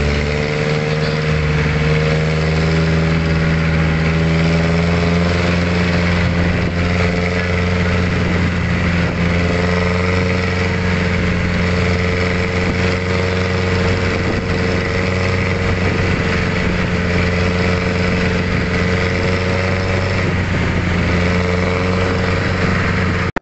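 Engine and road noise heard from inside a moving vehicle: a steady drone with a low hum and a higher engine note that wavers slowly in pitch.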